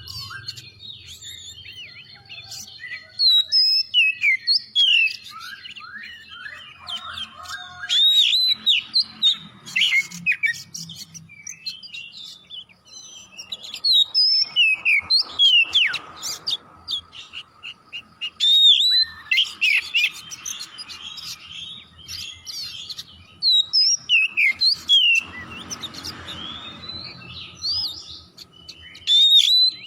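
Oriental magpie-robin singing vigorously: bursts of varied, rich whistles and quick chattering notes, rising and falling in pitch, separated by short pauses.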